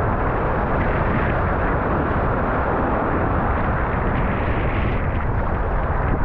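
Strong wind buffeting a GoPro action camera's microphone, mixed with the rush of breaking surf and whitewater around the kayak: a loud, steady, even noise.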